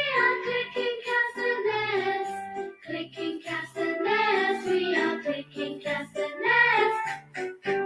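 A children's phonics song for the c/k letter sound, a voice singing over an instrumental backing.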